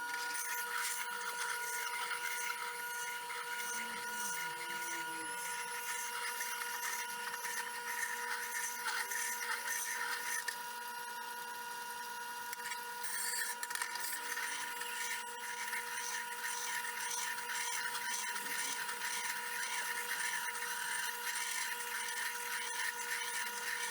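Steel hatchet edge being sharpened on a whetstone: repeated scraping strokes of the blade across the stone, over a steady background hum.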